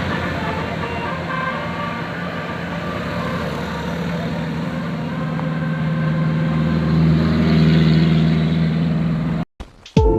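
Bus engine running and growing louder as it draws near, with faint steady horn tones in the first couple of seconds. The sound cuts off abruptly near the end.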